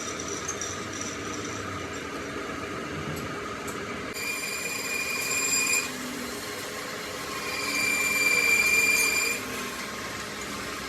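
Metal-cutting machine tool running steadily, with a high, steady whine coming in twice as the cutter bites: briefly about four seconds in, then louder for about two seconds around seven and a half seconds in.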